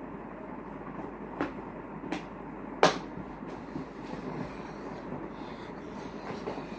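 Steady background rumble and hiss with three sharp clicks or knocks, most likely from handling objects; the loudest knock comes about three seconds in.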